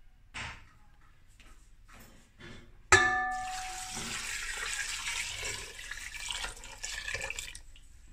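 Water poured from a glass bowl into a metal pressure cooker, splashing steadily onto onions and spices for about four and a half seconds. The pour begins with a sharp ringing clink, and two faint knocks come before it.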